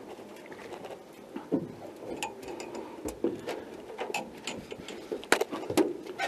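Scattered light clicks and knocks of footsteps and fishing gear against an aluminium boat hull, with two sharper knocks a little after five seconds in.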